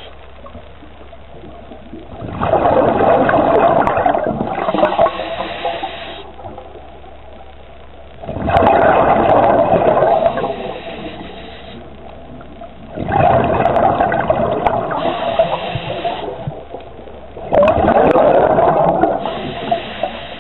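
A scuba diver breathing through a regulator underwater. Exhaled bubbles rush out in four bursts about every five seconds, each lasting three to four seconds, with quieter breathing between them.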